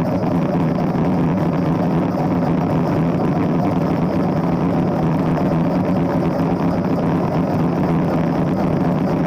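Chevrolet Camaro bracket car's small-block V8 idling steadily, heard from inside the cabin, with no revving.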